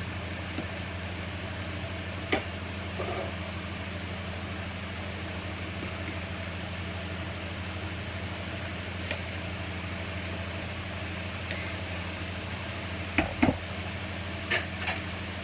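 Pans cooking on a stovetop: a faint steady sizzle and simmer over a constant low hum, with a few brief knocks of utensils about two seconds in and twice near the end.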